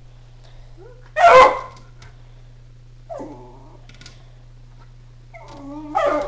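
Schnauzer barking: one loud bark about a second in, a shorter yip around three seconds, and whining that runs into another bark near the end.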